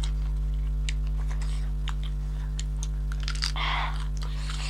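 Close-miked eating sounds: chewing and biting food, a scatter of small clicks and crunches, with a short louder rush of noise about three and a half seconds in.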